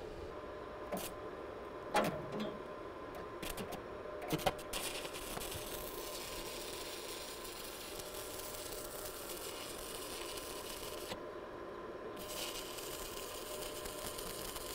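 Stick (electrode) arc welding on steel: the arc crackles and sizzles steadily in two runs. The first starts about five seconds in and breaks off about eleven seconds in; the second is struck again about a second later. A few sharp clicks and knocks come before the first run.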